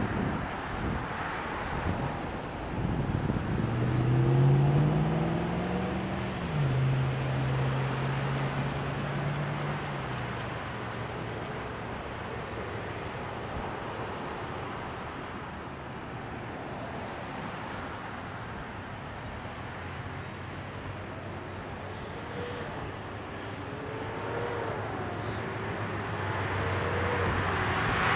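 Road traffic at an intersection: a steady wash of tyre and engine noise from passing cars. A few seconds in, one vehicle's engine rises in pitch as it pulls away, then holds steady, and the traffic grows louder near the end as a semi-truck moves through.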